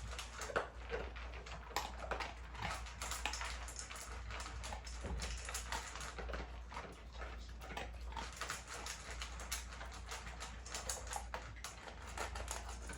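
American bully dogs eating from their bowls: a run of irregular crunches and clicks from chewing dry food.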